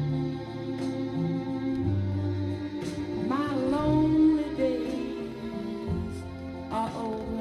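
A song with a singing voice and instruments, played from a vinyl record on a turntable through hi-fi loudspeakers and picked up by a phone's microphone.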